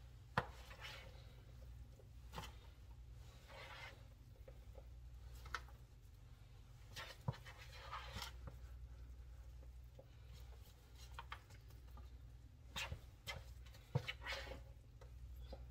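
Soft, intermittent scraping and clinking of a metal spoon in a mixing bowl as moist stuffing is scooped out and dropped into a disposable aluminium foil pan, with a few sharper clicks scattered through, over a faint steady low hum.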